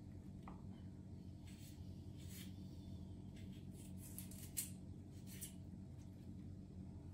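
Kitchen knife slicing a red onion on a wooden cutting board: a handful of faint, crisp cuts, the loudest about four and a half seconds in, over a steady low hum.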